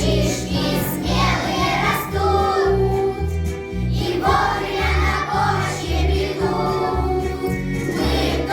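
Children singing together over a recorded backing track with a regular, steady bass line.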